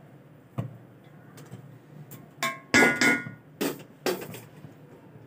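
A metal spoon knocking against the side of an aluminium cooking pot about six times, the loudest strikes about three seconds in with a brief metallic ring.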